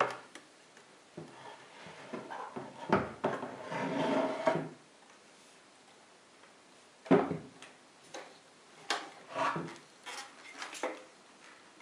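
A Makita 1806B electric planer being handled and lifted out of its wooden carrying case: scattered knocks and scrapes of the tool against the wood, with the heaviest knock about seven seconds in.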